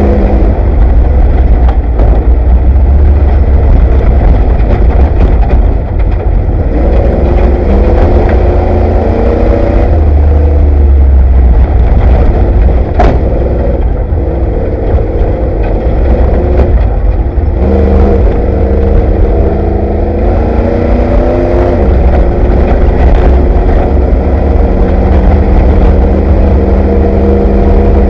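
Ford Bronco desert race truck's engine heard from inside the cab under hard driving. Its note climbs and drops as the revs change, over a heavy low rumble, with a sharp knock about halfway through.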